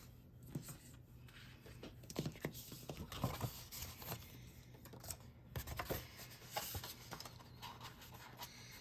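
Cardstock and craft supplies handled on a work table: faint, scattered rustles, light taps and scraping of paper.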